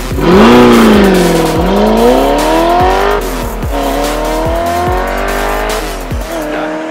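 Audi R8's 4.2-litre V8 with a Powerflow exhaust accelerating hard: its pitch climbs and falls sharply at each upshift, twice. Background music with a steady beat plays along with it.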